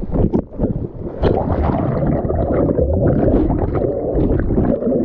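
Muffled churning and gurgling of pool water over a camera microphone that is submerged or at the surface, with a few sharper splashes in the first second or so.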